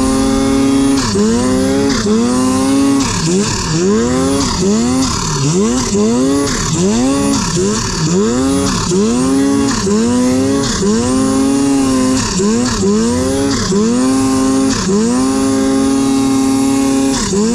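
Turbocharged snowmobile engine revving up and down as the rider works the throttle through deep powder. The pitch rises and falls about once a second, with a few longer held stretches, over a steady hiss.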